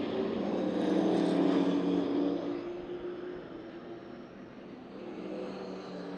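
Several stock-car engines at racing speed, a few engine tones overlapping as the field laps. Louder for the first two seconds or so, then fading, and swelling again near the end.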